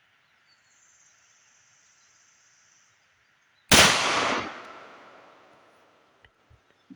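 A single .45 ACP pistol shot from a Tisas M1911, a sharp loud report about four seconds in that echoes and dies away over about two seconds.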